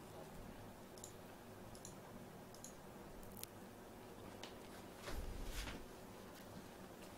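Faint, scattered computer mouse clicks over a low steady room hum, with a brief louder noise about five seconds in.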